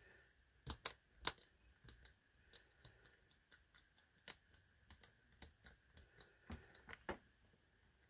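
Small, sharp metal clicks and ticks at an irregular pace as a cut-down key blank used as a pick works the levers of an ERA Big 6 lever padlock under tension. The loudest clicks come about a second in and again near the end.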